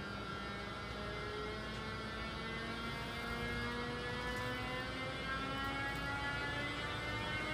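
Siemens Vectron-family electric locomotive's traction converters and motors whining as it gathers speed: several tones climbing slowly in pitch together over a low rumble, growing louder.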